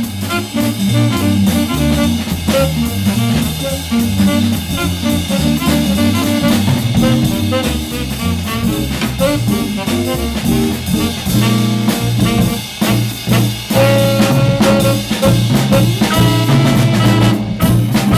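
A jazz ensemble playing an upbeat swing groove, with drum kit, a stepping bass line and horns.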